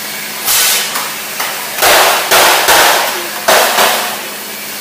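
Compressed-air blow gun fired in four short bursts of loud hissing against a freshly welded steel door frame.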